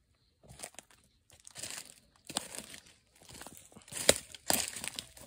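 Irregular crunching and rustling through dry leaves and brush, with a sharper crack about four seconds in.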